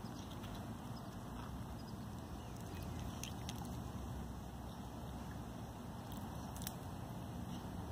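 Steady low rumble of wind on the microphone, with a few faint taps and splashes as a small child dabbles his hand and a stick in a muddy puddle.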